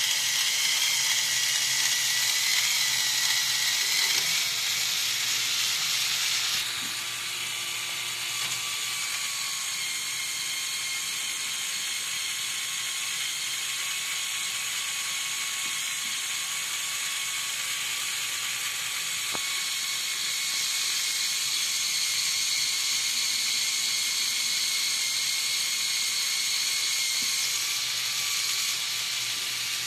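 Lego Technic 8258 crane truck's electric motor and plastic gear train whirring steadily as they drive the crane, whose gearing is modified to a lower ratio. The whine drops and changes pitch about seven seconds in and grows a little louder again past twenty seconds.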